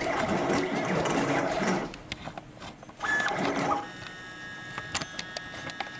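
CNC plasma cutting torch cutting metal plate, its arc hissing loudly until it cuts off about two seconds in. A short burst of cutting noise follows about a second later, then a quieter steady machine whine with a few clicks.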